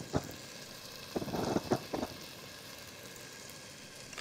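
Rice sizzling faintly in butter and oil in a pot, with a short scratchy burst of handling noise from about one to two seconds in.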